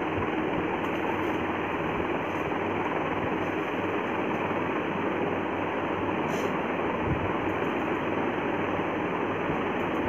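Steady, even rushing background noise that holds at one level throughout, with no speech.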